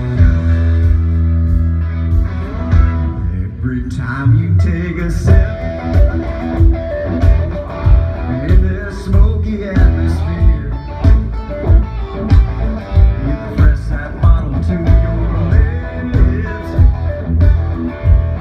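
Live country band playing loud through a large outdoor PA, led by electric guitar over bass; a steady drumbeat comes in about four seconds in.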